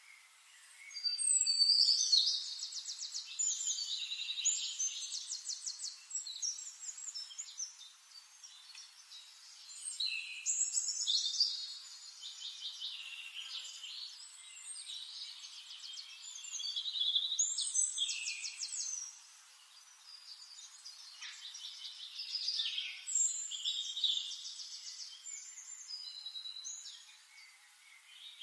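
A songbird singing long, varied, high-pitched phrases full of rapid trills, in four bouts separated by short pauses.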